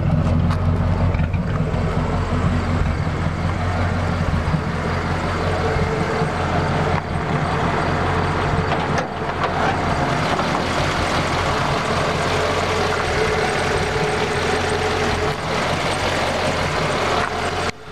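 1939 Ford half-ton pickup's engine running steadily at idle, heard at first close to the tailpipe with a strong low exhaust note, then at the front of the truck and under the open hood.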